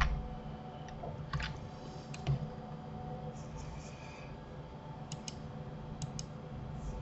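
Scattered sharp computer mouse and keyboard clicks, a few of them in quick pairs, over a faint low steady hum.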